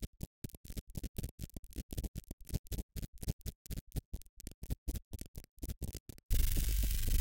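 Short sound snippets pulled from a database and played back by a SuperCollider script in quick, uneven succession, about five a second with dead silence between them. Near the end a dense, continuous texture with a deep throbbing low end takes over.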